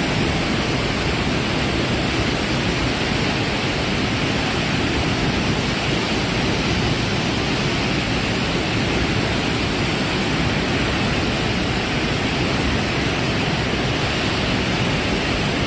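Steady, unbroken rush of floodwater pouring out through the open spillway gates of the Jurala dam.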